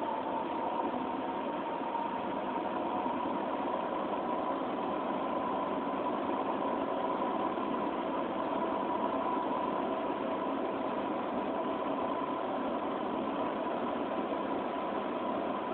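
An engine running steadily: an even mechanical hum with a steady tone riding on it, no change in speed.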